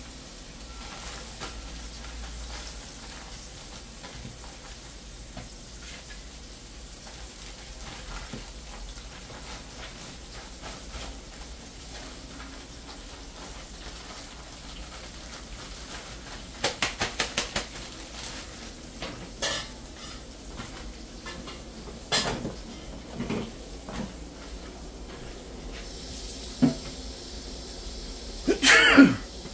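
Snapper fish slices frying in hot oil in a pot, a steady sizzle. Metal kitchen utensils clink and knock against pots: a quick run of about six clicks a little past halfway, single knocks after that, and a louder ringing metal clatter near the end.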